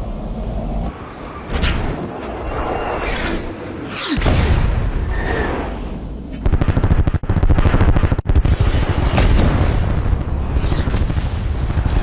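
Fighter-jet dogfight sound mix: jets whoosh past several times over a heavy rumble, with booms and, past the middle, a long burst of rapid gunfire lasting about two seconds.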